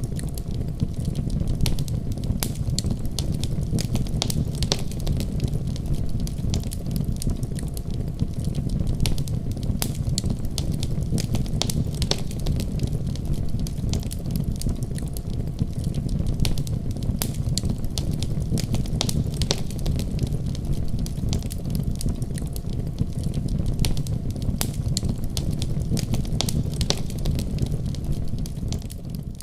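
Firewood burning in a wood stove: frequent irregular sharp crackles and pops over a steady low rumble.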